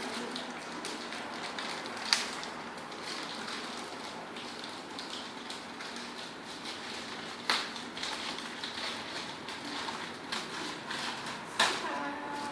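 Packaging being handled and opened: continuous rustling and scraping, with three sharp snaps or clicks, the loudest about two seconds in and near the end.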